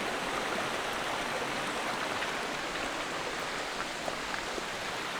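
Steady rush of falling water: High Force waterfall on the River Tees, heard through the woods on the path down to it.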